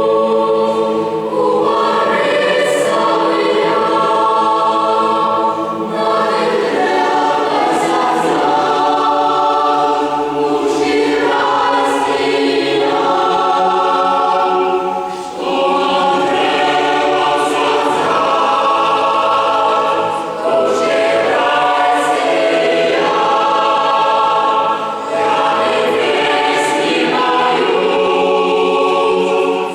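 A choir singing in sustained, many-voiced phrases. The sound breaks off briefly between phrases about halfway through and twice more later.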